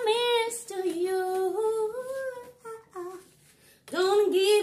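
A woman humming a slow tune without words, in held notes that step up and down, with a brief pause a little past three seconds in.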